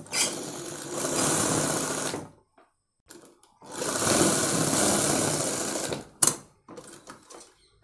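Sewing machine stitching in two runs of about two seconds each with a pause between, followed by a few short clicks near the end.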